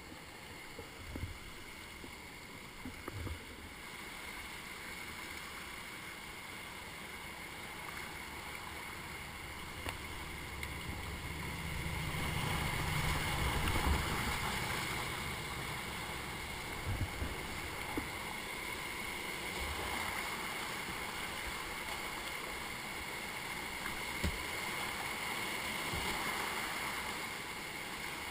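Whitewater rushing around a kayak running a rapid. The rush swells loudest about halfway through, with a few short knocks.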